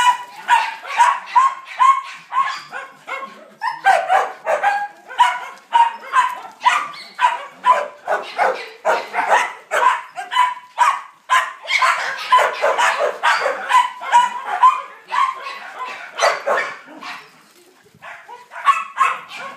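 Siberian huskies barking and yipping in rough play, short calls coming a few a second, easing off briefly near the end.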